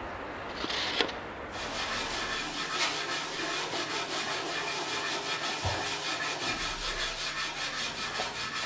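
Wood being worked by hand with an abrasive: fast, even back-and-forth rubbing strokes, several a second, going on without a break from about a second and a half in.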